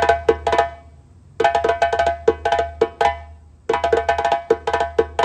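Percussion played in quick runs of ringing strokes, in phrases about two seconds long with short pauses between them.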